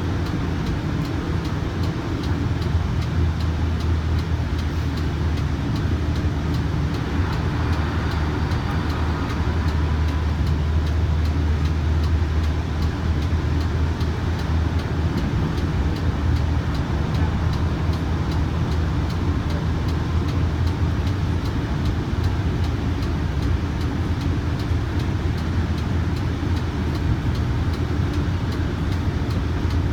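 Kinki Sharyo light rail vehicle running at speed, heard from inside the car: a steady low rumble of wheels on the rails and running gear.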